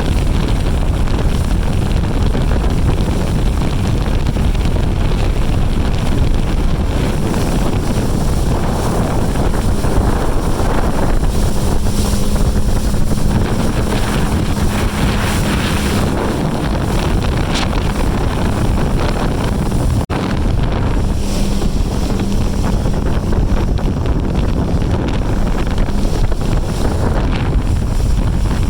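Wind buffeting the microphone on a motorboat running at speed across the lake. A steady engine drone sits underneath the rush of wind and water.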